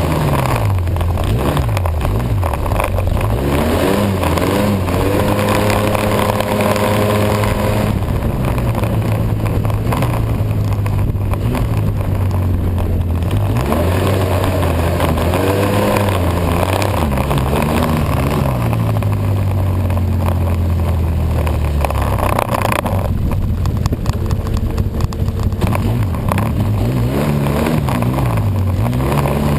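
Snowmobile engine running under way, its pitch repeatedly rising and falling as the throttle is opened and eased, with steadier held stretches between.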